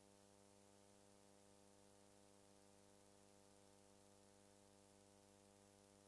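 Near silence: a faint, unchanging hum with hiss, with no sound from the scene itself.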